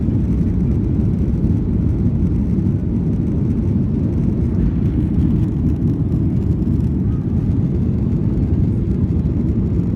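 Steady low rumble of a jet airliner heard inside the cabin as the plane rolls along the ground: engine noise and wheel rumble, with no distinct events.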